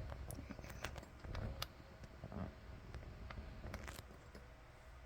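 Tarot cards being handled and moved one by one: soft sliding and rustling with a few sharp clicks, loudest a little under a second in and again near four seconds.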